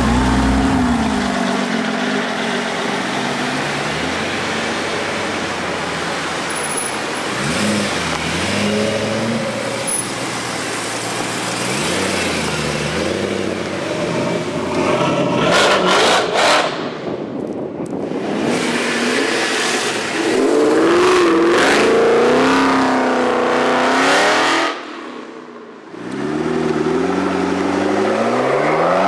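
Sports cars, among them a Porsche 911 GT3, a BMW M3 and a McLaren MP4-12C, driving past one after another with loud exhausts, engines revving up and down as they pull away. The sound breaks off sharply about 25 seconds in, then a rev climbs again near the end.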